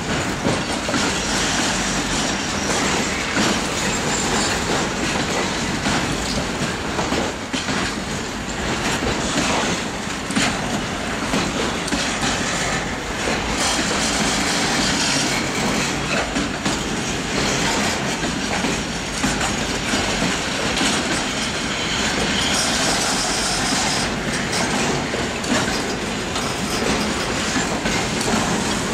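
Long freight train's wagons rolling steadily past, wheels clicking over the rail joints.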